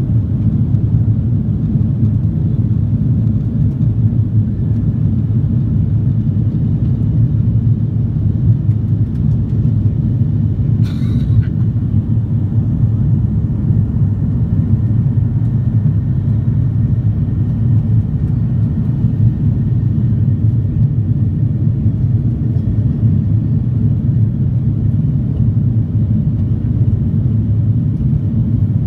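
Steady low rumble of an Airbus A340-300's four CFM56-5C4 turbofans and rushing air, heard inside the economy cabin during the climb after take-off. There is a brief click about eleven seconds in.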